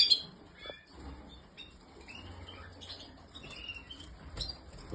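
Canaries giving short, scattered chirps and call notes rather than full song, with a faint click about four seconds in.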